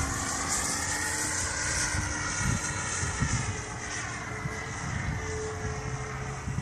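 Electric motor and propeller of a radio-controlled Cessna model plane whining in flight, the pitch rising slightly and then easing down as the plane passes, with low rumbling of wind on the microphone.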